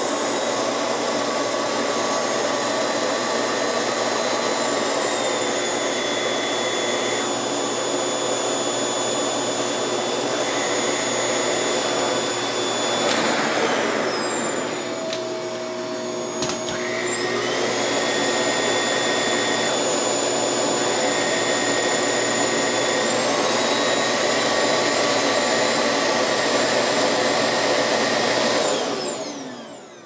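Toshiba VC-CF30R cyclone canister vacuum running steadily on its low setting with a whining motor. About thirteen seconds in the pitch drops and the sound quietens as the cleaner is lifted and switches itself into eco mode, then it rises back a few seconds later; near the end the motor winds down as it is switched off.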